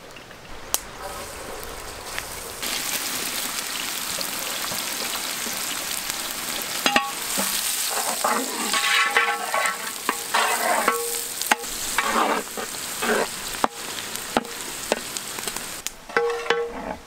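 Chopped red onions frying in hot oil in a large metal pot, a steady sizzle that swells about three seconds in, stirred with a long-handled ladle with occasional knocks against the pot. Some pitched sounds come and go behind the sizzle in the second half.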